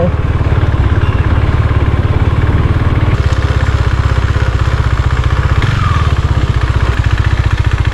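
Motorcycle engine running steadily at low speed, with an even, rapid firing pulse.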